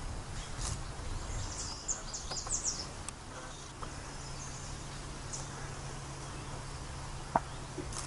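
Woodland ambience: a run of short, high-pitched chirps about a second and a half to three seconds in, over a steady low hum, with a single sharp click near the end.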